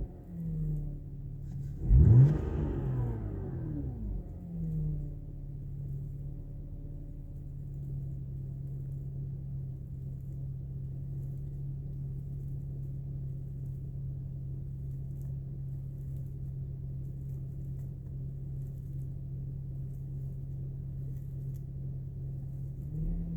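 BMW N52 2.5-litre straight-six engine revved sharply once about two seconds in, blipped lightly a couple of seconds later, then settling into a steady idle. The idle is even, its misfire and rough running largely cured by a fresh service.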